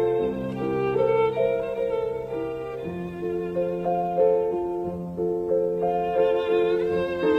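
Slow instrumental background music with long held notes, several sounding together, with a string sound like a violin.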